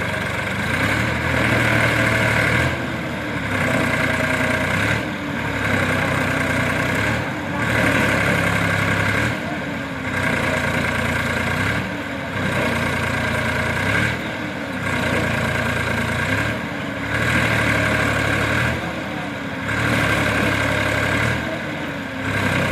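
Tractor engine running, its sound swelling and dipping in an even cycle about every two seconds.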